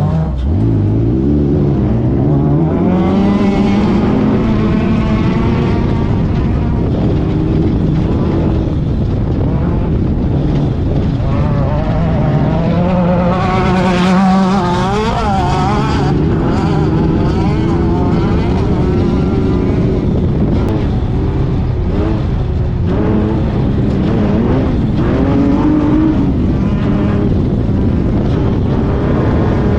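Off-road race car's engine running hard, heard from inside the car, its pitch repeatedly climbing and dropping as it accelerates and backs off.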